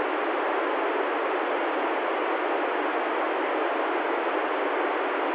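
Steady, loud FM receiver hiss from an ICOM ID-51 handheld transceiver tuned to the ISS downlink on 145.800 MHz. The squelch is open and no carrier is coming in: the station has stopped transmitting after "Over".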